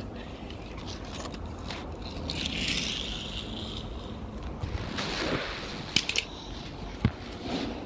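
Handling noise of a small toy car being moved and scraped over a wooden floor, with a few sharp clicks near the end.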